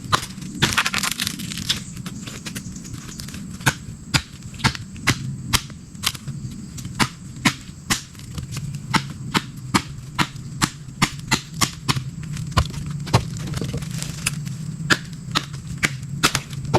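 A long run of sharp, irregular cracks, about one to two a second, over a low steady background rumble.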